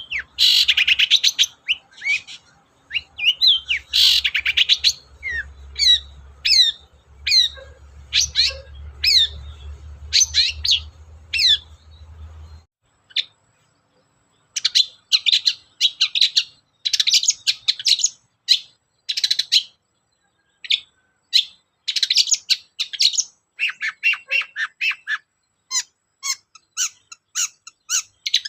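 Long-tailed shrike (cendet) singing hard: fast runs of sharp, high, chattering and squawky notes, with a short pause a little before halfway. A faint low hum sits beneath the song until that pause.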